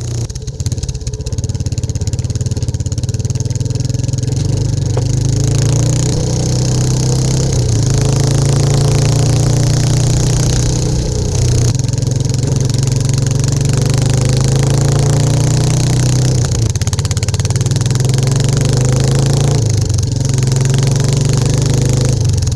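Royal Enfield Classic 350's single-cylinder engine and exhaust running on the move, steady and loud, with the note dipping briefly a few times as the throttle changes. Wind noise rushes over it.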